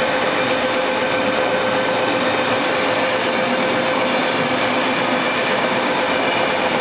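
KTT through train's double-deck coaches running past at speed: a loud, steady rush of wheels on rail with a steady tone underneath.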